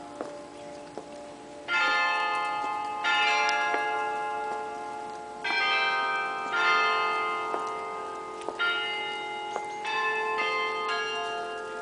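Church bells pealing: about seven strikes at uneven intervals, each bell ringing on and overlapping the next as it slowly fades.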